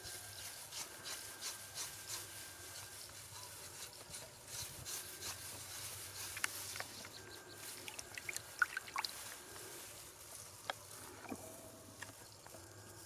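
Small knife cutting and scraping an aloe vera leaf by hand: soft rubbing strokes with small sharp clicks, busiest in the first few seconds and again in the middle.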